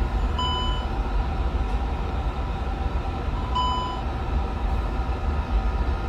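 Steady low hum of an Airbus flight deck's equipment, with two short electronic beeps about three seconds apart while a display system test runs.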